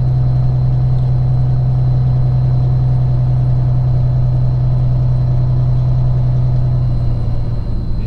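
Peterbilt 379's diesel engine running steadily as the truck rolls slowly, heard as a loud low drone inside the cab. Its note drops slightly near the end.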